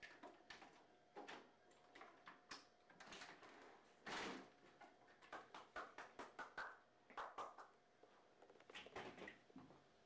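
Deadbolt and knob of a glass-panelled French door being worked to unlock and open it: a string of small clicks and rattles, with one longer, louder rattle about four seconds in.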